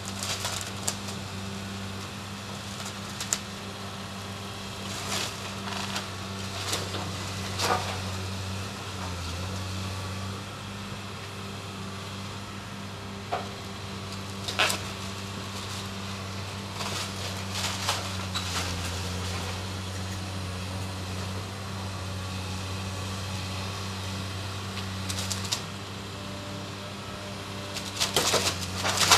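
Caterpillar excavator running steadily while its grapple tears apart a wooden roof structure, with scattered cracks and crashes of splintering timber and falling debris, the loudest cluster near the end.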